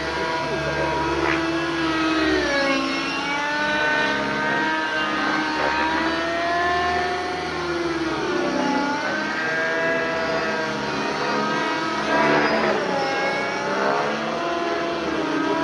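The O.S. MAX-55HZ glow engine and rotors of a JR Vibe 50 NEX radio-controlled helicopter running in 3D aerobatic flight. The pitch rises and falls over and over as the helicopter manoeuvres.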